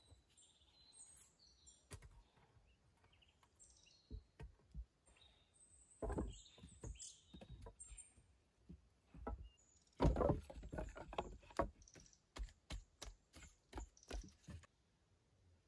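Wooden sticks and short logs knocking and clattering against each other as they are laid in place, with a burst of rapid clacks about ten seconds in followed by single knocks. Birds chirp faintly in the first few seconds.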